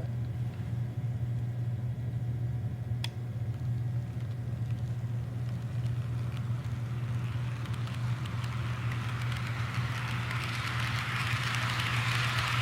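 Two Rapido SD10 model diesel locomotives running on the track with their cars, a quiet rolling and motor noise over a steady low hum, with a single click about three seconds in. The rolling noise grows louder from about halfway as the train comes close to the microphone.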